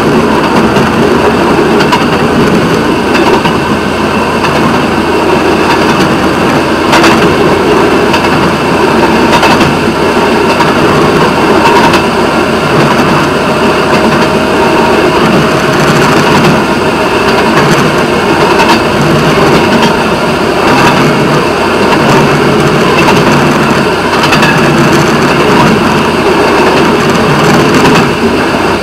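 Railway motorcar under way: its small engine running steadily while its steel wheels roll along the rails, with a few scattered sharp clacks.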